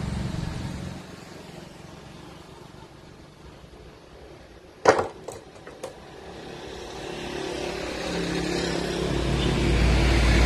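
Engine of a passing motor vehicle, a low drone that fades out in the first second and builds up again from about seven seconds in. About five seconds in, three sharp clicks of scissors snipping wire.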